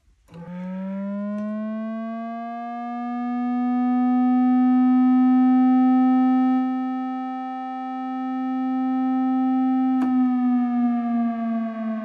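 Korg MS-20 FS analog synthesizer, played dry, imitating an air raid siren with one held tone. It rises in pitch over the first couple of seconds, holds while swelling louder and easing off, then starts to slide down near the end, with a single click about ten seconds in.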